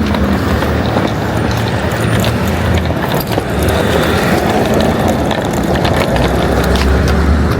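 Car on the move: a steady rumble of road and engine noise, with a few faint clicks.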